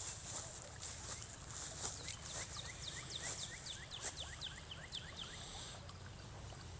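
A bird calling in a rapid run of short, falling chirps, about five a second, starting about two seconds in and lasting some three seconds, over a steady faint high hiss.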